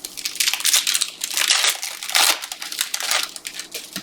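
Trading-card pack wrapper crinkling and crumpling in the hands, a dense run of crackles with a louder crunch about two seconds in.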